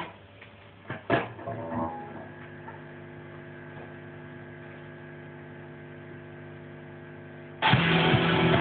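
Steady hum and buzz from an electric guitar amplifier, with a few string and pick clicks and a brief touch of the strings about a second in. Just before the end the song starts loudly on electric guitar.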